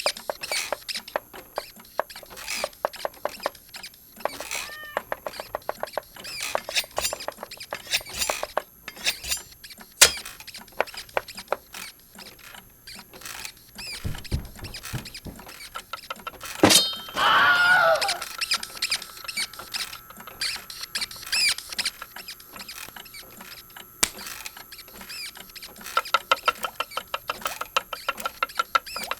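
Layered cartoon sound effects: a busy run of quick clicks, taps and small squeaky blips. There is a sharp hit about ten seconds in, and a loud crack about seventeen seconds in followed by about a second of a wavering, squeal-like sound. Near the end comes fast, dense ticking like a ratcheting mechanism.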